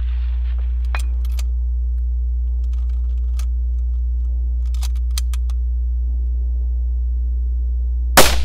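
A single loud rifle shot through a muzzle brake near the end, with a short ringing tail. Before it come a few faint clicks and knocks, and a steady low hum lies underneath.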